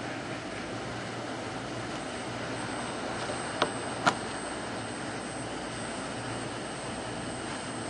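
Steady rush of hot air blowing from a Metcal HCT2-200 hot air rework pencil, with a faint hum under it. Two sharp clicks about half a second apart come a little past the middle.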